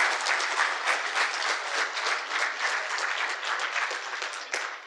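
Audience applauding, many hands clapping at once, fading away near the end.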